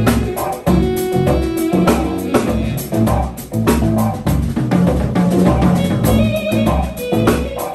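A live jazz trio playing: an electric bass line of repeating low notes, a busy drum kit with frequent cymbal and drum hits, and keyboards.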